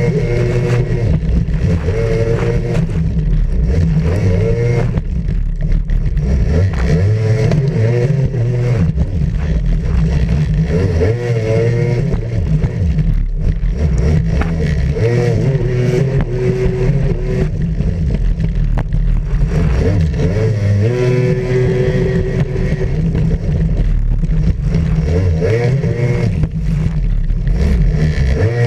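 Racing jet ski's engine, heard from a camera on its hull, revving up and falling back again and again through the turns, over the rushing noise of water spray and wind.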